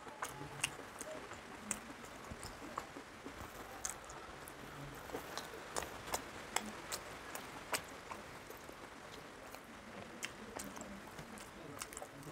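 Eating rice and curry by hand: fingers squelching through rice on a steel plate, with chewing and lip-smacking. Many sharp clicks come at irregular intervals throughout.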